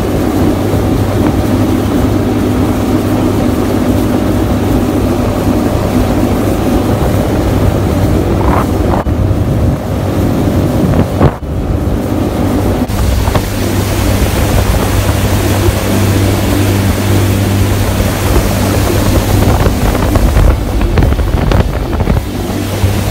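Polaris MSX 150 personal watercraft running at speed, its engine a steady drone under heavy wind noise on the microphone and water rushing along the hull. A brief knock comes about eleven seconds in.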